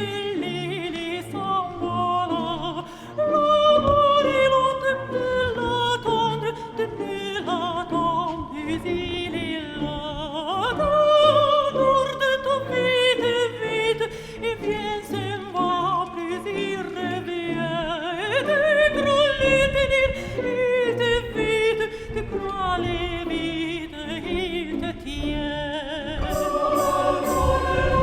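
Background music: a classical operatic piece with a high voice singing long descending phrases over orchestral accompaniment.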